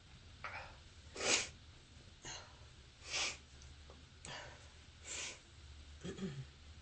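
A person with bronchitis sneezing three times in a row, about two seconds apart, the first sneeze the loudest, with short breathy sounds between them. A brief voiced sound comes near the end.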